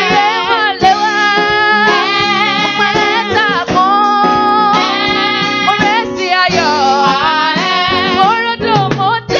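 Church worship song: a singer with a wavering vibrato over steady instrumental accompaniment.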